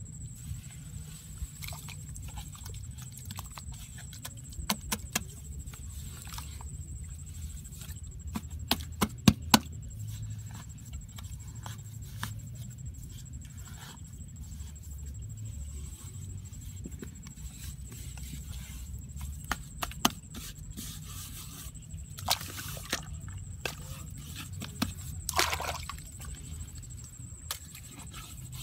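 Hands scraping and scooping wet mud inside a small dug hole, with scattered sharp clicks and knocks, a quick cluster of them about nine seconds in, over a low steady rumble.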